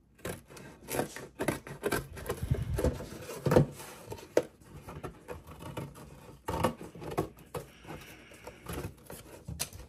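Scissors snipping through a thin paperboard cracker box, with irregular crisp clicks of the blades and the crackle and rustle of the cardboard being handled; the sharpest snap comes about three and a half seconds in.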